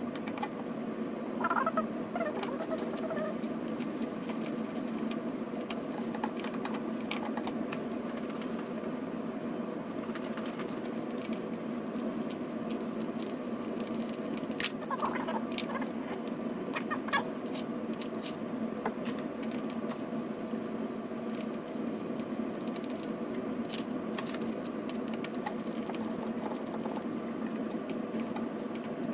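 Light clicks and taps of a screwdriver and plastic lane guides being fitted onto pinball playfield posts, over a steady low hum; the sharpest click comes about halfway through.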